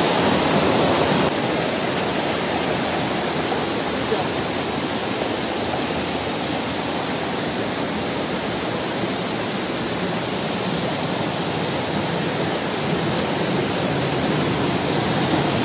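Steady rush of a river waterfall, an even wash of falling water.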